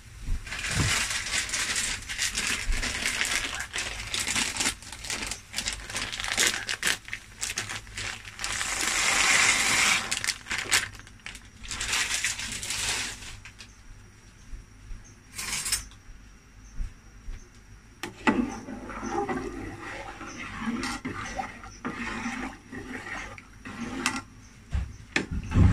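Dry elbow macaroni poured into a pot of rolling boiling water, a dense clattering hiss for about the first dozen seconds. After a quieter stretch of bubbling, a metal ladle stirs the pasta in the aluminium pot near the end.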